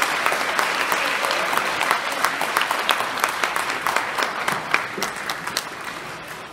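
An auditorium audience applauding, dense clapping that slowly dies away towards the end.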